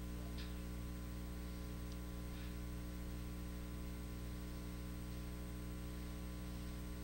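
Steady electrical mains hum with a faint hiss from the microphone and sound system, unchanging throughout.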